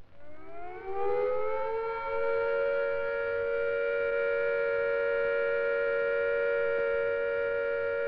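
Civil defence siren rising in pitch as it winds up over about the first two seconds, then holding one steady note: the all-clear signal, meaning the immediate danger of air attack or fallout has passed.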